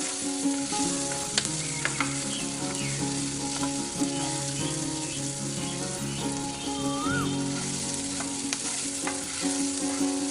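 Food frying and sizzling in hot oil in a miniature pan, with a steady hiss. It is being stirred with a small utensil, which gives scattered light clicks against the pan.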